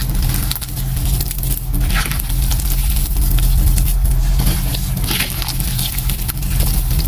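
Hands squeezing and kneading wet gym chalk paste mixed with crumbly chalk chunks and glitter: soft squishes and crumbling crunches in uneven bursts about once a second, over a steady low hum.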